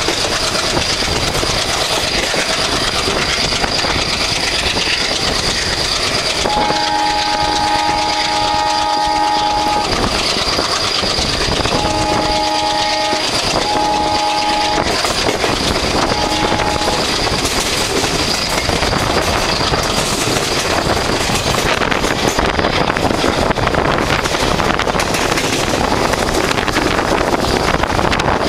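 ALCO-design WDM3A diesel-electric locomotive's 16-cylinder engine chugging hard under load as the train accelerates, over the noise of the train on the rails. Its multi-tone horn sounds one long blast about a quarter of the way in, then two shorter blasts close together and a faint short one after.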